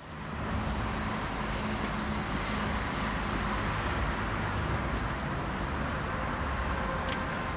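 Steady outdoor street ambience: an even, constant rush of road traffic noise.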